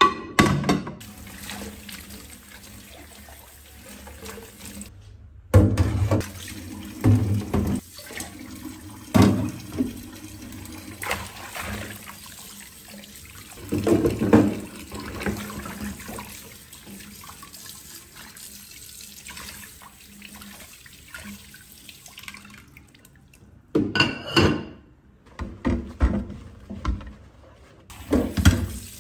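Water running from a tap, with frequent knocks and clatters on top, the loudest near the start, about 6, 9, 14 and 24 seconds in.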